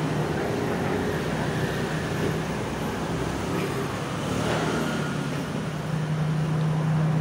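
Steady road traffic noise, with a low engine hum that grows louder near the end.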